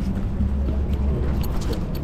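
Low, steady rumble of street traffic, swelling a little for about a second in the middle as a vehicle goes by.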